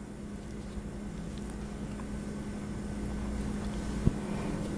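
Muffled rubbing and handling of a microplush polyester throw blanket moved close to the microphone, a low rumble that slowly grows louder, over a steady low hum, with one sharp click about four seconds in.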